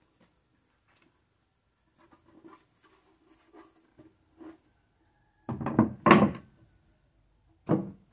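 Wooden pieces being handled and knocked together: a few light knocks, then a cluster of loud wooden thuds about two thirds of the way in and a single thud near the end.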